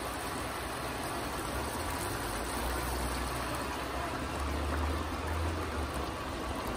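A pot of curry goat tripe and liver simmering on the stove, a steady bubbling hiss of the liquid cooking. A low rumble swells about four to five seconds in.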